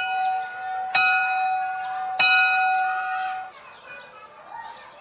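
A school bell struck repeatedly, about one strike every second and a quarter, each strike ringing on at one clear pitch; the ringing stops about three and a half seconds in, leaving faint chirping.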